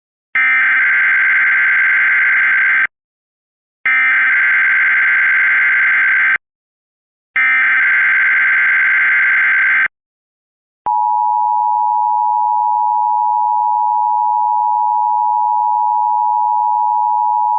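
Emergency Alert System SAME header: three digital data bursts of about two and a half seconds each, separated by short silences. About eleven seconds in, the steady two-tone EAS attention signal starts and holds, opening a Blue Alert.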